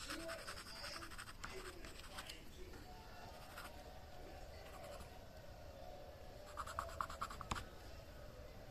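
White coloured pencil scratching faintly on rough, tempera-coated card in quick short strokes, with a brief run of sharper strokes about two-thirds of the way in.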